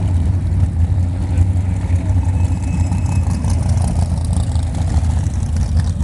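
Engines of several vintage modified stock cars running together as they come through a turn, one car passing close. A steady low drone with no clear rise or fall.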